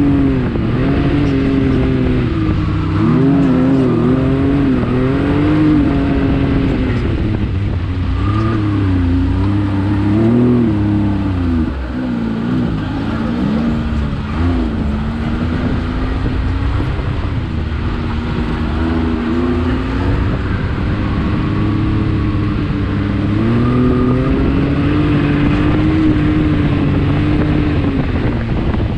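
Can-Am Maverick X3 XRC Turbo's turbocharged three-cylinder engine driving over sand dunes, its revs rising and falling repeatedly with the throttle.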